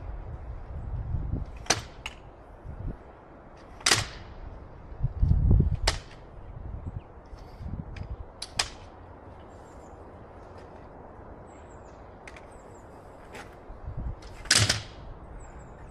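Sharp knocks and clanks, five or so at irregular intervals, from metal ladder and tool handling during outdoor fixing work, with low rumbles near the start and faint high chirps near the end.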